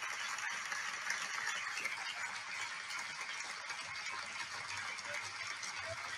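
A steady, low hiss of background noise, with no speech or music.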